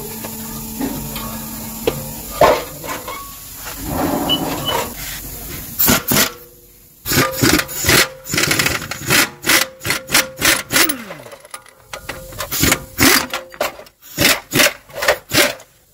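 A run of sharp knocks and clatters, several a second, from tool work on a car's front suspension strut; the first few seconds hold only scattered quieter clicks.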